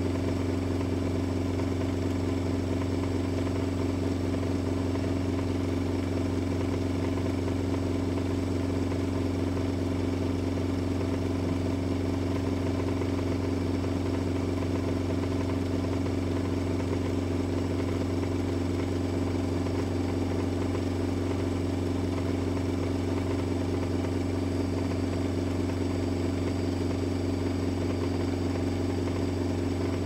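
Toy Miele and Bosch washing machines running through a wash cycle, their small electric drum motors giving a steady, unchanging hum.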